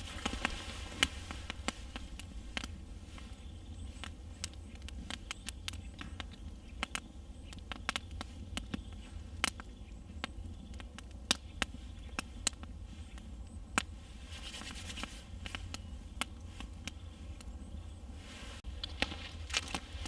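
Wood campfire crackling, with irregular sharp pops and snaps of varying loudness throughout.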